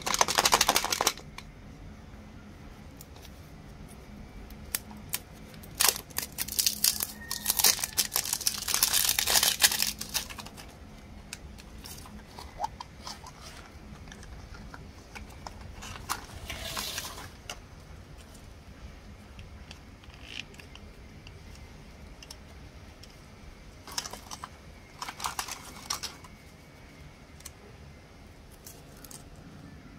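Plastic wrapper of a chocolate surprise egg being torn and crinkled, in several separate bursts of crackling lasting from one to a few seconds, between stretches of quiet handling.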